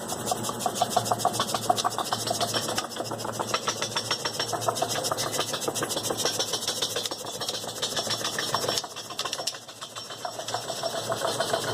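Rapid, continuous knocking rattle, many knocks a second, from the anti-puncture armouring inside a car tyre, easing briefly near the end. It sounds much like a suspension knock, but the armour insert in the tyre is the cause.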